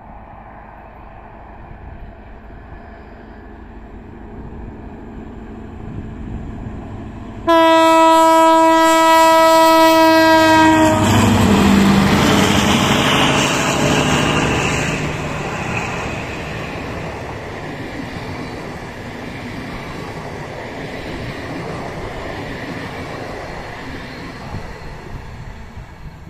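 TCDD DE 22000-class diesel-electric locomotive (DE 22 057) hauling a passenger train: its engine grows louder as it approaches, then it sounds one long horn blast of about three and a half seconds. The locomotive and passenger coaches then roll past, loud at first, and fade as the train goes into a tunnel.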